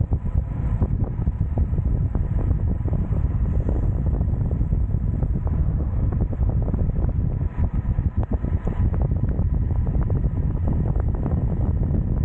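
Wind buffeting the microphone of a 360 camera on a bike descending a mountain road: a steady low rumble crackling with gusts.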